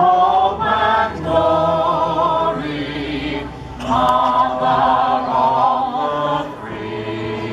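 A group of voices singing a 1940s wartime song together in chorus, in long held notes, with a short break between phrases about three and a half seconds in.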